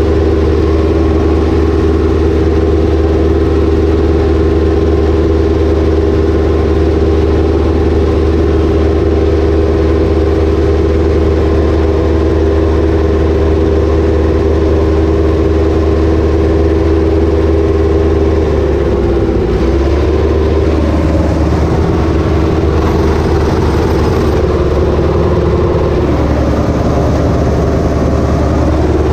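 Ursus tractor's diesel engine running steadily at working revs, heard from inside its cab. About two-thirds through, its note drops and wavers for several seconds, then steadies again near the end.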